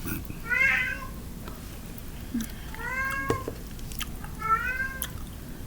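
Domestic cat meowing three times, each meow about half a second long and slightly arched in pitch, spaced a second or two apart.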